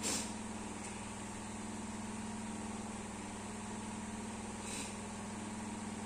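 A steady low mechanical hum, with two brief hisses, one right at the start and one about three-quarters of the way through.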